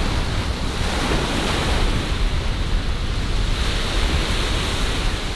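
Small waves breaking on a sandy shore, a steady wash of surf, with wind rumbling on the microphone.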